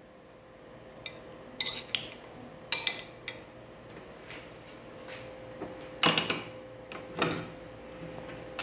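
Metal spoon and kitchen dishes clinking: several light clinks and knocks in the first three seconds, then two louder clatters about six and seven seconds in. A faint steady hum runs underneath.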